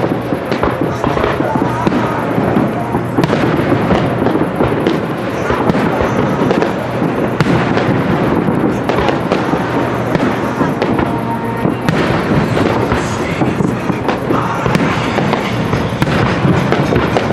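Fireworks display: aerial shells bursting with continuous dense crackling, many small pops overlapping without a break.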